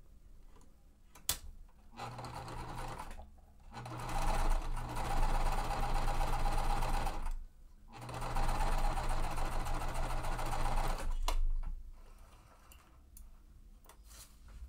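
Sewing machine stitching a quilt-piecing seam in three runs of a few seconds each, with brief stops between them; a sharp click comes just before the first run and just after the last.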